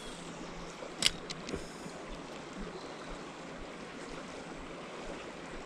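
Steady rush of flowing river water, with one sharp click about a second in and two fainter clicks soon after.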